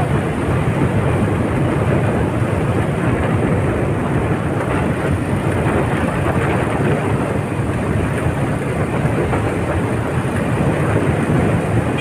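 Steady rumbling rush of wind on the microphone and road noise from riding along a road in a moving vehicle, with no separate events standing out.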